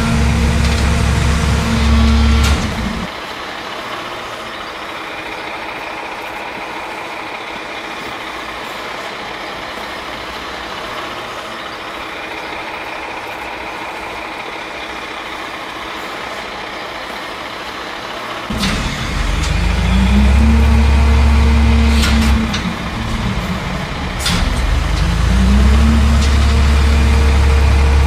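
Rear-loader garbage truck packer cycling: a motor runs loud and steady, drops to a quieter hum about three seconds in, then winds up with a rising pitch about eighteen seconds in and runs loud again. It dips briefly and winds up once more a few seconds later, with a few sharp clicks.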